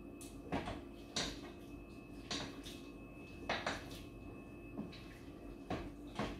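Spatula stirring pork and carrots in a multicooker's inner pot: a series of short, irregular scrapes and knocks against the pot.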